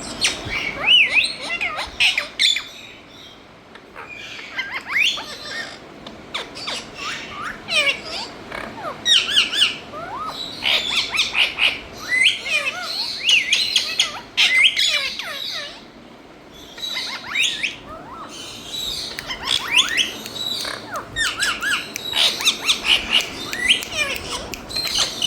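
Ringneck parakeet chirping and squawking in bursts of quick, high, rising and falling calls, with short pauses between the runs.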